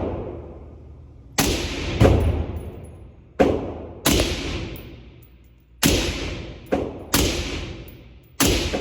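An AR-15 in 5.56 firing eight semi-automatic shots at an uneven pace, some in quick pairs, each sharp report followed by a long echoing decay.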